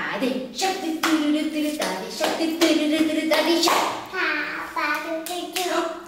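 Hands clapping in a steady rhythm, about two claps a second, over a woman singing a clapping song.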